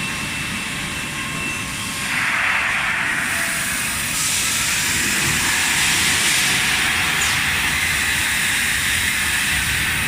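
Refrigerator cabinet thermoforming machine running, with a steady mechanical noise and a hiss that grows louder about two seconds in.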